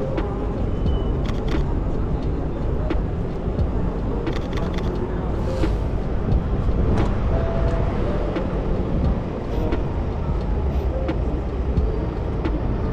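City street ambience: road traffic running by, with passers-by's voices and scattered short clicks.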